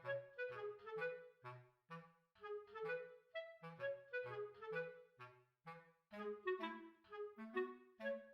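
Instrumental background music: a bouncy melody of short, evenly paced notes over a walking bass line.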